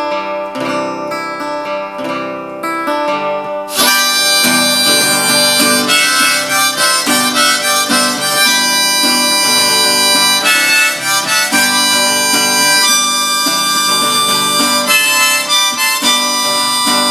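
Acoustic guitar strumming, then a harmonica comes in about four seconds in and plays an instrumental break over the strummed guitar.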